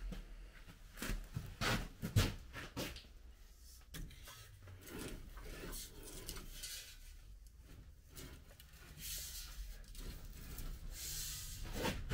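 Irregular rubbing and scraping, with a few short knocks in the first few seconds and a longer, hissy scrape near the end.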